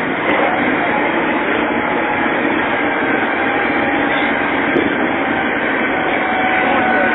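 Heavy machinery engines running steadily under load, with a faint steady whine above the engine noise.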